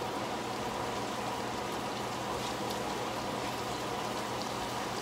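Hamburger patties sizzling steadily in a frying pan, with a few faint light ticks.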